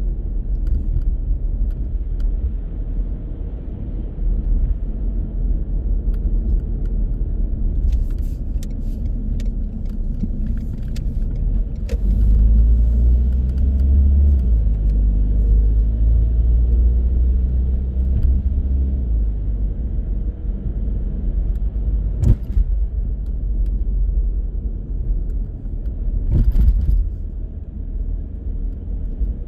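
A car driving, with a steady low rumble of engine and road noise. From about twelve seconds in, the rumble grows louder and the engine note rises for several seconds as the car accelerates. A few sharp knocks cut through, the loudest just past the twenty-second mark and another about four seconds later.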